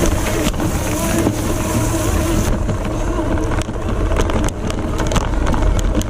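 Wind buffeting the microphone over the low rumble of a four-wheel-drive electric recumbent trike riding over rough ground. In the second half there is a run of short rattling clicks.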